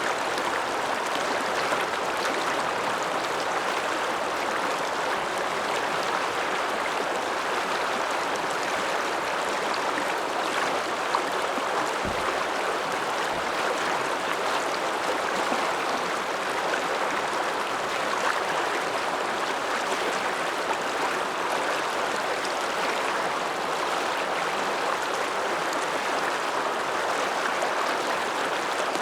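Alpine mountain river, the Ramsauer Ache, rushing with a steady, even flow.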